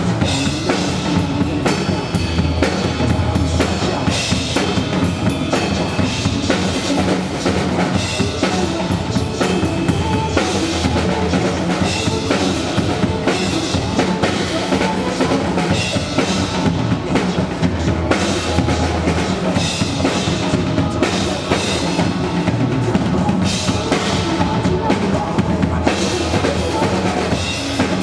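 Beatboxing: a performer's voice making drum-kit sounds (kick, snare and rimshot-like clicks) in a steady, continuous groove.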